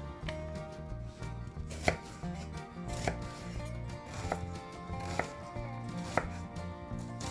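A kitchen knife chopping onion on a wooden cutting board, the blade knocking on the board roughly once a second, the loudest knock nearly two seconds in.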